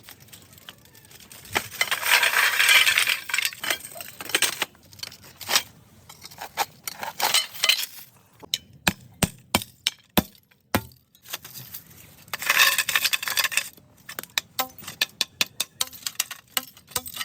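Glass of a fluorescent tube being worked by hand: two spells of scraping and many sharp clinks and taps.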